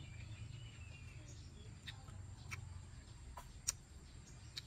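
A few sharp, wet mouth clicks and smacks from chewing salted Java plums, scattered through the seconds, with the loudest about three-quarters of the way through. Faint bird chirping near the start, over a low steady background rumble.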